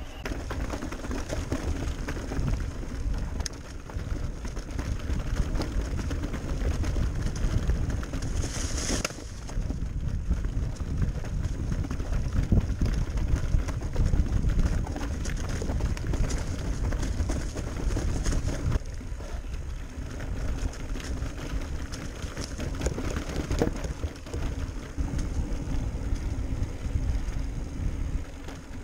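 Electric mountain bike riding over a dirt trail: continuous rumble of tyres and wind on the on-board microphone, with frame and drivetrain rattles and knocks over rough ground.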